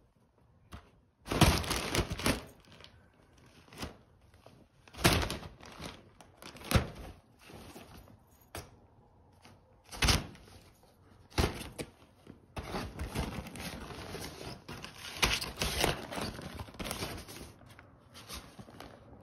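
Crinkly nylon cat tunnel rustling and crackling in irregular bursts, with dull thumps, as a Siamese cat scrambles and pounces inside it. The rustling becomes nearly continuous in the second half.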